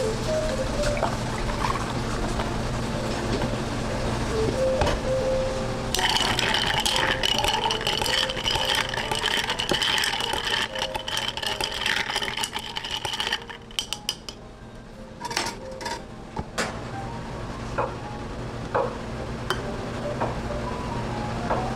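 Milk pouring into a tall glass over ice, a steady splashing pour that starts about six seconds in and stops about seven seconds later. Scattered clinks and knocks of glassware follow, over a steady low hum.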